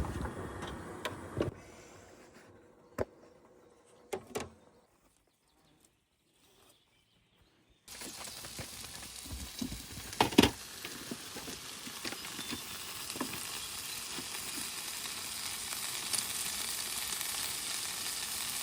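Sizzling hiss of cooking on a portable camping stove. It starts abruptly about eight seconds in, after a few faint clicks in near quiet, and grows slowly louder.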